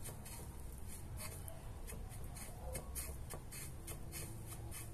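Fingers pressing a batter-coated chicken strip into dry panko crumbs and grated parmesan: soft, irregular crackling and rustling of the crumbs, over a faint low hum.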